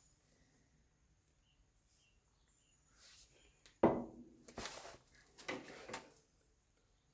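A sharp knock with a brief ring, then two short scraping rustles about a second apart, like parts or tools being handled during workshop work.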